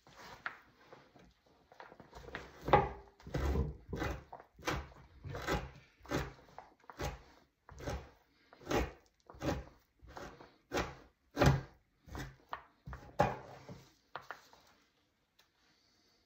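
Two-handled fleshing knife scraping flesh and fat off a beaver hide stretched over a wooden fleshing beam, in quick repeated strokes about two a second, which stop near the end.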